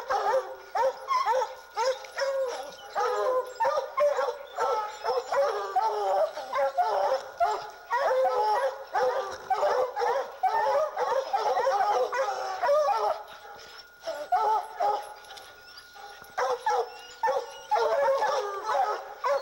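A pack of Treeing Walker hounds baying at the foot of a tree, a dense chop of overlapping barks that eases for a couple of seconds about two-thirds through and then picks up again. This is barking treed, the hounds' sign that they have a mountain lion up the tree.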